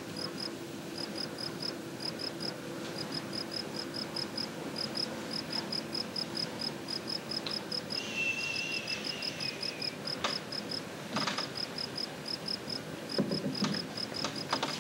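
Crickets chirping in quick regular pulses, a night-time background. A short, slightly falling whistle-like tone about eight seconds in. A few knocks near the end as feet climb a wooden ladder.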